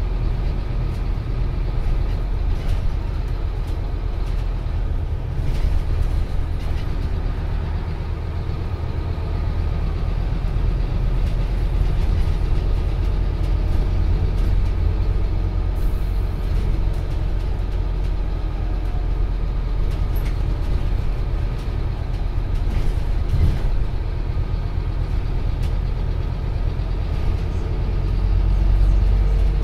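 Cabin noise of a Scania OmniCity CN230UB single-deck bus under way: the five-cylinder diesel drones steadily over road rumble, heavy in the low end, with a slightly louder rumble near the end.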